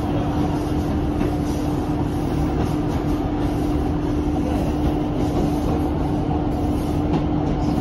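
Diesel passenger train running steadily along the track, heard from inside the carriage: an even rumble of wheels on rail with a steady hum running through it.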